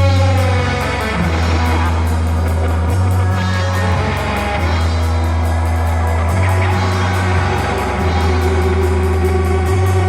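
Rock music with electric guitar, steady bass notes and drums.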